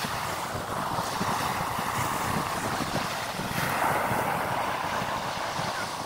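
Sea surf breaking and washing onto a sandy beach, with wind buffeting the microphone; the rush swells louder a little past halfway.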